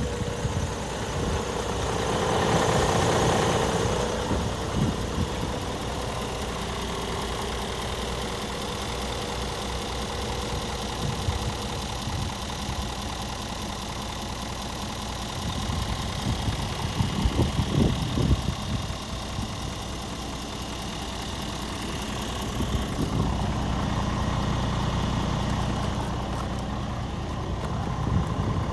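Scania G450's 13-litre six-cylinder diesel idling steadily, with two brief louder rushes of noise, one about three seconds in and one a little past the middle.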